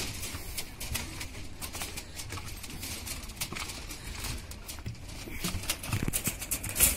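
Hooves of a walking horse clopping on a bridge deck of steel mesh and grating, an irregular string of short, sharp knocks.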